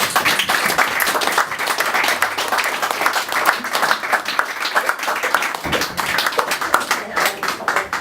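Audience applauding, a steady clapping that thins out near the end.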